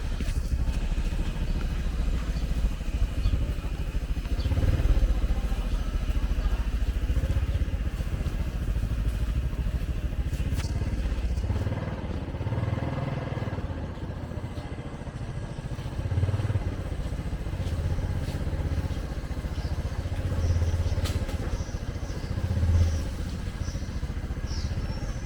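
Motorcycle engines and street traffic running by, a steady rumble that swells every few seconds as vehicles pass.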